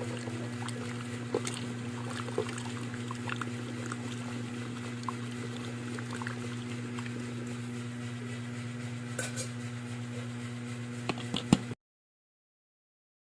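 Pot of herbal tea simmering: light bubbling with small scattered pops over a steady low hum. The sound cuts off abruptly near the end.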